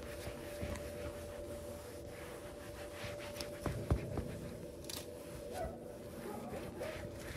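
Paper towel wiping and rubbing a wet vinyl door panel, a run of soft scuffing strokes. A short low thump about four seconds in, over a faint steady tone.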